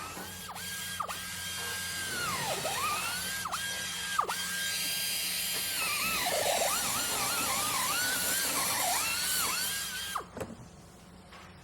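Power drill motor whining at high speed, its pitch plunging and recovering again and again as the bit bites and loads it, then wobbling up and down quickly for a few seconds. It cuts off about ten seconds in, followed by a few knocks.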